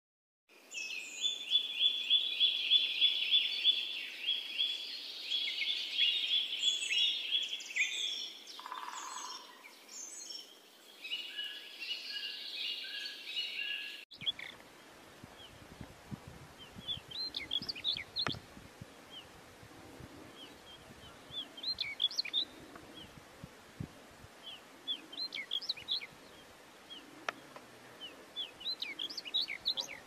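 For the first half, a loud, dense run of rapid trilling chirps. Then, about halfway through, quieter short song phrases from a pied bushchat, a burst of quick chirps every three or four seconds.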